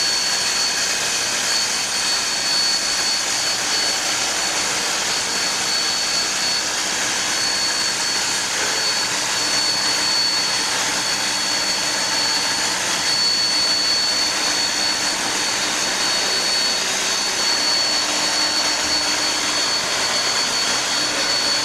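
1901 NSWGR 32 class steam locomotive blowing off steam through its safety valves: a steady, loud hiss with a thin high whistling tone in it, the sign of a full head of steam while the engine stands.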